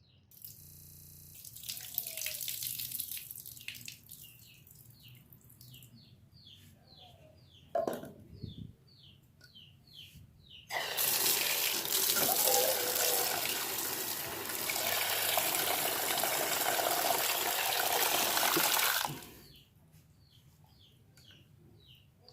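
Tap water running into a pot to fill it for boiling, a steady rush lasting about eight seconds in the second half, after a briefer run of water near the start. A single knock sounds about eight seconds in.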